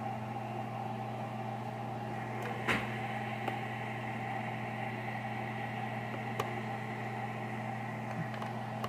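Steady low electrical hum of a running appliance, with a light knock about three seconds in and a couple of faint ticks.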